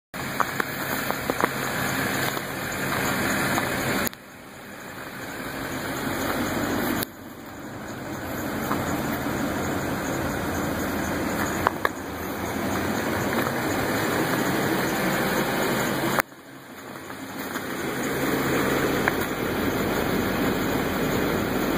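Duramax 6.6-litre V8 turbodiesel of a GMC Sierra 3500 dump truck idling under a steady rushing hiss. The sound drops off abruptly about four, seven and sixteen seconds in, each time swelling back up over a couple of seconds.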